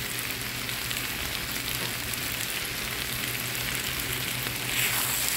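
Shredded cabbage, carrot and capsicum sizzling in a frying pan over high heat, with a steady low hum underneath. The sizzle grows a little louder near the end.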